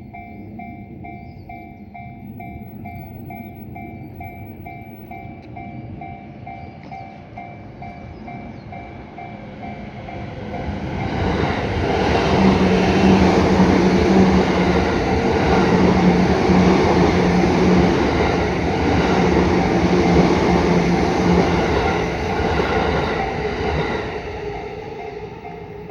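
Level-crossing warning bell dinging in a steady quick rhythm, then a Yamanote Line E235 series electric train runs through the crossing, growing loud about eleven seconds in and dying away after about twenty-four seconds, with the bell still heard as it fades.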